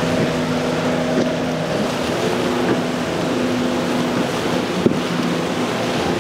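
Mercury outboard motor running hard as a small boat crosses rough inlet waves, its engine note stepping up and down as the throttle is worked, over the rush of spray and surf. A short sharp slap about five seconds in.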